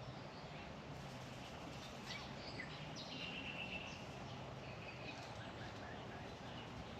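Birds calling in the background over steady outdoor noise: a few short chirps about two seconds in, then a trilled call about three seconds in and a fainter one around five seconds.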